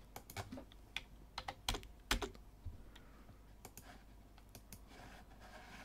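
Computer keyboard and mouse clicks while entering values in software: a run of quick, light taps in the first two seconds, then a few scattered clicks.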